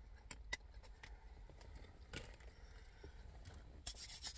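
Quiet eating and handling noises: scattered small clicks, then a short burst of rustling near the end, over a low steady rumble.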